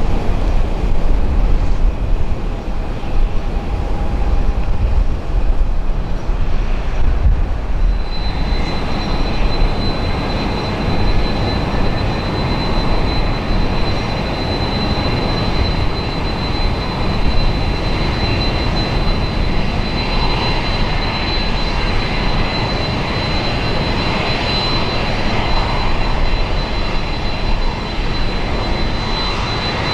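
Jet airliner's engines running over a low rumble. About eight seconds in, a steady high-pitched whine joins and holds.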